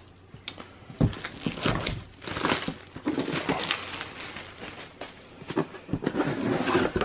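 Plastic shrink wrap crinkling as it is pulled off and handled, with the cardboard box being moved about and a few sharp knocks, the clearest about a second in.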